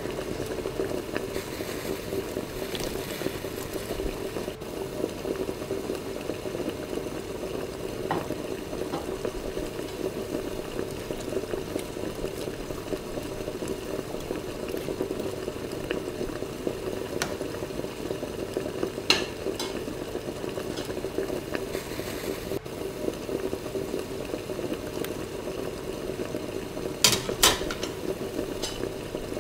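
Creamy chicken sauce simmering and bubbling in a pan over a steady low hum, with scattered light clinks of a ladle against the pan and a few sharper clinks about two-thirds of the way in and near the end.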